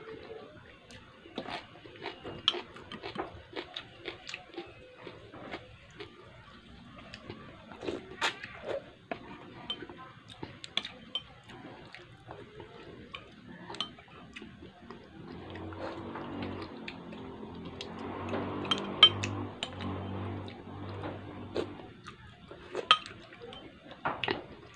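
A metal spoon and fork clinking and scraping against a ceramic plate and soup bowl during a meal, in scattered sharp clicks. A low hum swells in about fifteen seconds in and fades about seven seconds later.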